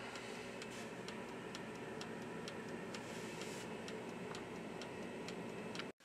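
Mechanical timer dial of a Cuisinart air fryer toaster oven ticking steadily, a few ticks a second, while the oven runs with a steady fan hum underneath. Both cut off abruptly near the end.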